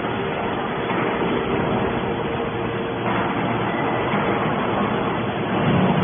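Hydraulic scrap metal baler running: steady machine noise with a constant hum.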